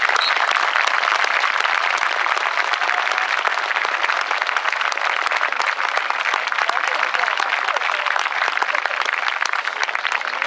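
Spectators applauding, many hands clapping steadily, with voices mixed in.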